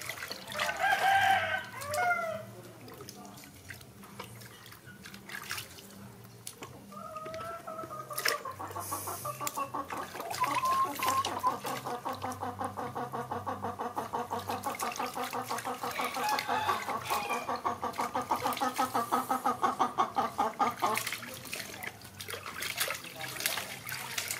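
Animal calling: a short pitched call about a second in, then a long, rapidly pulsing call from about seven seconds in that stops suddenly near the end, with water splashing and dripping from a small plastic tub.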